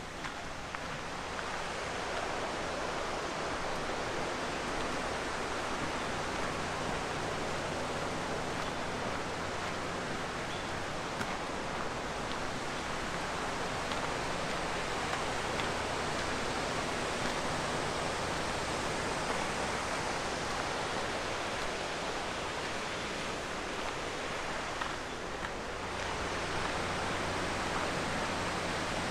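Steady rush of river water over rapids on the Capilano River, an even roar that swells in over the first second or two and dips briefly near the end.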